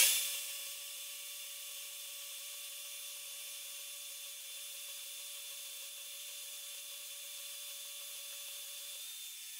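DeWalt portable band saw running, its blade cutting slowly through 3/4-inch square mild steel bar fed in with a push stick: a steady whine with high hiss. One of its tones stops and another shifts slightly near the end.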